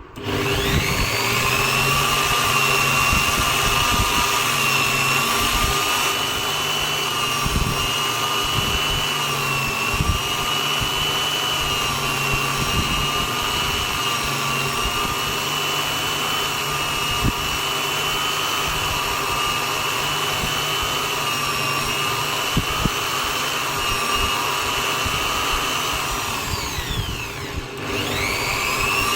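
Electric drill press motor, turned sideways and used as a lathe. It starts with a rising whine and runs steadily, spins down near the end, then starts up again.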